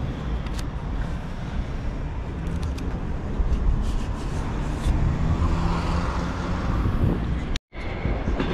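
Street traffic noise: a steady low rumble of passing cars, with a few faint clicks, cutting out briefly near the end.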